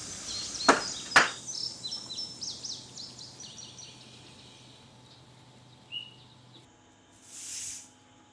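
Two sharp knocks on wood about a second in, from wooden planter boxes being assembled, then a run of high bird chirps that fades away. Near the end comes one swish of a bamboo broom sweeping the pavement.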